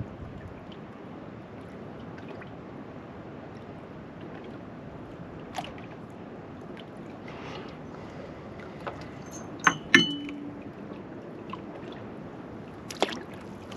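Steady low wash of water and breeze around a small boat, with a few faint tackle clicks. About ten seconds in come two sharp metallic clinks with a brief ringing tone, and another knock near the end.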